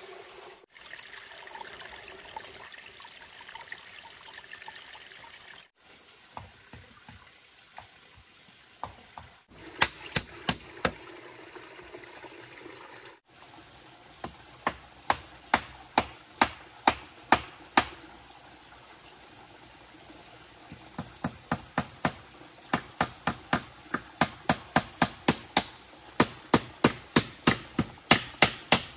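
Runs of sharp, evenly paced hand-tool strikes, of the kind made chopping or knocking on bamboo, at two to three a second. They start about a third of the way in and quicken near the end. Running water trickles underneath throughout.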